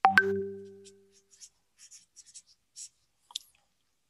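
Pen writing on paper in short, faint scratchy strokes. Right at the start a sharp click is followed by a brief ringing tone that dies away within about a second, the loudest sound here.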